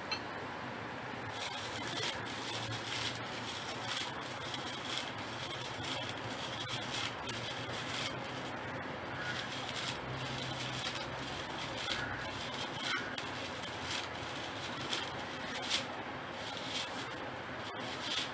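A bundle of dry coconut leaf ribs and cord rustling and scraping as the cord is pulled tight and wound around the head of a handmade broom. It comes as a run of short, irregular rubs and crackles.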